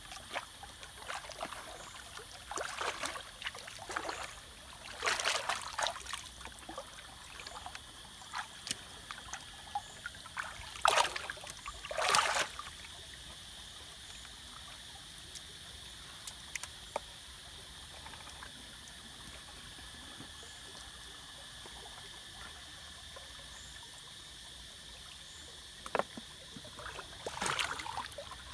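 Shallow stream water splashing and sloshing as a person wades and works with his hands in the water, in short bursts through the first half and again near the end.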